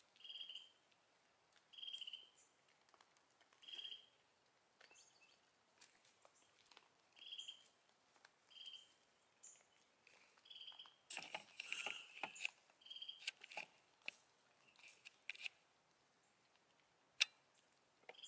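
Faint outdoor quiet with a small bird giving a short high chirp every second or two. A patch of rustling and crunching comes about eleven seconds in, and a single sharp click near the end.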